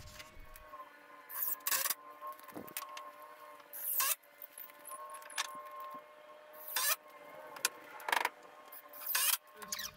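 Work noises on a wooden lumber frame: about six brief rasping, scraping bursts, with the loudest cluster near the end, over a faint steady hum of a few fixed tones.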